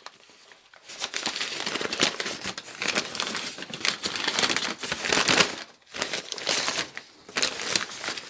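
Paper wrapping crinkling and rustling as it is pulled open and unfolded by hand. It starts about a second in and goes on in dense crackles, with one short break about three quarters of the way through.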